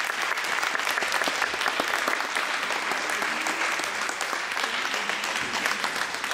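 A small group of people applauding steadily, many separate hand claps overlapping.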